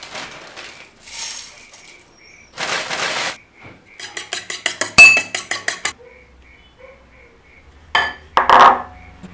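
Kitchen preparation sounds in quick succession: two bursts of rustling noise, then a fork beating eggs in a ceramic bowl, rapid clinks about seven a second for two seconds with one sharp, louder clink, then two short rustling bursts near the end.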